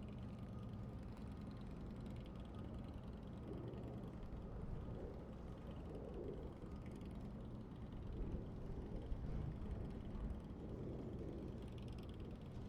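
Wind rumbling on the microphone over a steady low hum of distant engines from construction machinery and traffic.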